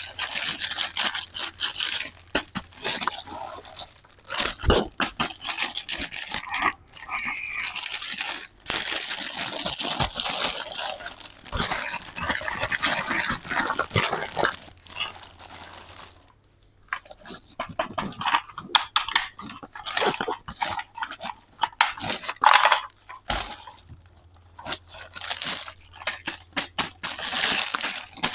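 Toy set packaging being torn open and handled: irregular bursts of crinkling and tearing with scattered sharp clicks, and a brief pause about two-thirds of the way through.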